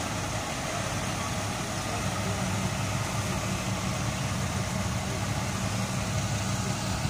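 A vehicle engine idling steadily, a low even drone over a constant hiss.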